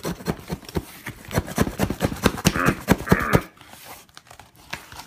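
Cardboard shipping box being cut and pulled open by hand with an ulu knife: a dense run of crackling, scraping and ripping, with a few short vocal noises in the middle.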